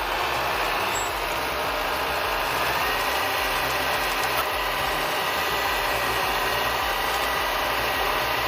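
LKT-81 forestry skidder's diesel engine running steadily while hauling a heavy load of logs, with a thin high whine coming in about two and a half seconds in.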